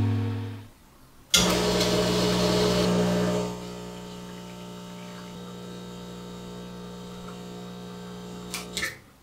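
Espresso machine pump running as a shot pulls into a glass measuring cup: a steady hum that starts suddenly, loud with a hiss for about two seconds, then settles quieter while the coffee runs. It ends with two short clicks and cuts off just before the end.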